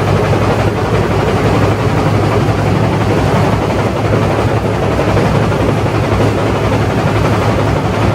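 Carpet-beating machine running steadily: a motor hum under a dense, fast, even beating.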